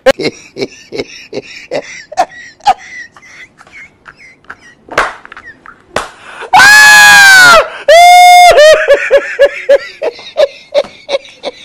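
A string of short sharp clicks and taps. About six and a half seconds in comes a loud, drawn-out human cry, then a second high cry that breaks into a run of laughter.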